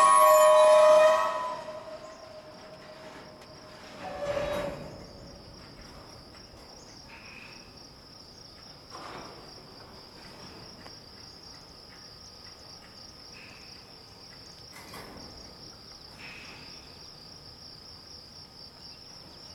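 Freight train's braked wheels squealing loudly as the train grinds to a stop in an emergency brake application set off by a parted air hose; the squeal cuts off after about a second, with one short squeal about four seconds in. Then a steady high insect trill.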